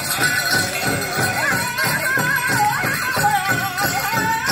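Powwow drum group singing a chicken dance song: high, wavering group vocals over a fast, steady beat on a big drum, with jingling bells.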